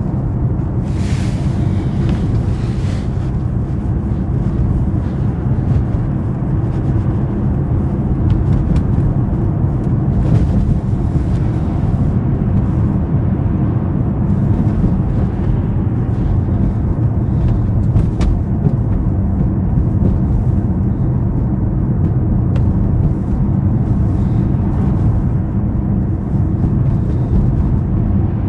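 BMW 750i's 4.4-litre twin-turbo V8 car driving at a steady pace, a low, even engine and road sound. Brief higher hissing comes twice, a second or so in and about ten seconds in.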